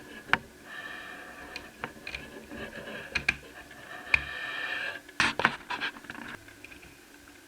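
Sharp clicks, taps and scraping as small laptop parts are handled and worked on, with a cluster of clicks a little past halfway.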